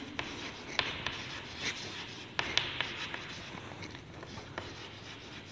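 Chalk writing on a chalkboard: faint scratching with several light taps as a word is chalked out.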